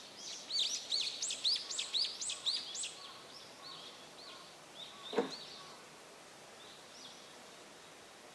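A songbird calling: a quick run of about nine bright, arching chirps in the first three seconds, then a few softer notes. A single sharp knock about five seconds in.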